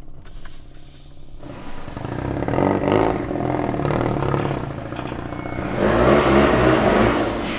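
Turbocharged 13B rotary engine of a Mazda FD RX-7 running under throttle as the car drives. It comes in abruptly about a second and a half in, grows over the next second or so, and is loudest again near the end.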